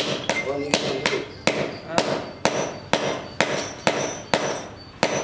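Small hammer striking metal held in pliers against a concrete floor, a steady series of about two blows a second, each with a short metallic ring.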